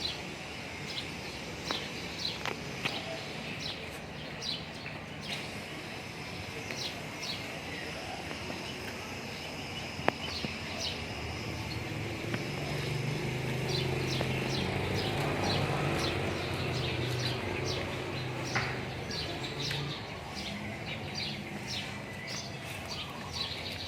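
Small birds chirping repeatedly in short high notes, with a low rumble that swells through the middle and fades, and a single sharp click about ten seconds in.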